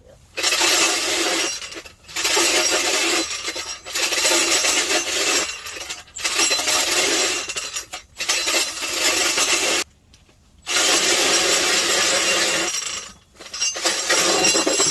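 Cordless drill turning an ice auger through about 8 inches of lake ice, run in bursts of a second or two with short pauses and one longer stop about ten seconds in, the blades scraping and cutting the ice.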